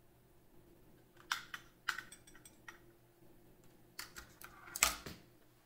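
Light clicks and knocks as a steel thermometer probe is lifted out of a glass beaker and the plastic digital thermometer is moved away. There are a few sharp taps about a second in, then a louder cluster near the end, the loudest about five seconds in.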